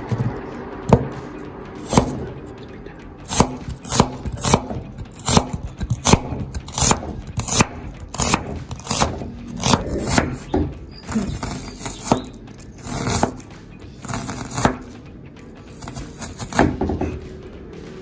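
Knife chopping on a cutting board, irregular sharp knocks about one to two a second with a few brief scrapes in the middle, over background music.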